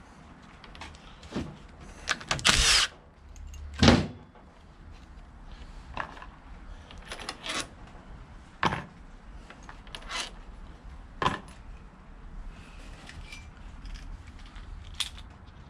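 Metal hand tools and small parts clinking and knocking as they are picked up and set down on a workbench around a differential carrier: a short rattling clatter about two seconds in, the loudest knock about four seconds in, then single clinks every second or two.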